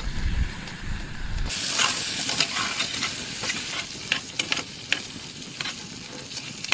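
Sliced beef and potatoes frying in a pan, a steady sizzle with scattered clicks and scrapes of stirring. A low rumble fills the first second and a half, then cuts off abruptly as the sizzle comes up.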